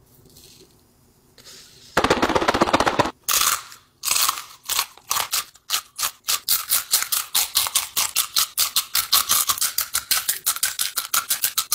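Crunchy rolled corn tortilla chips (Takis) being bitten and chewed close to the microphone: fast, even, loud crunching, several crunches a second, after a short rustle about two seconds in.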